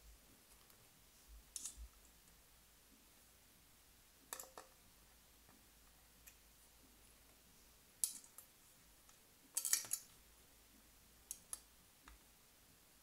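Scattered light clicks and taps of small hardware being handled: screws picked up, a hand hex driver and a chassis plate moved and set down on the bench. The loudest clicks come about two-thirds of the way in, a quick cluster of them.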